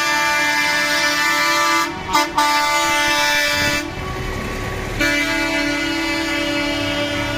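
Truck air horns held on long, several tones at once, as lorries drive past. They break off briefly twice about two seconds in, drop out for about a second near the middle where engine and tyre noise carry on, then sound again from about five seconds.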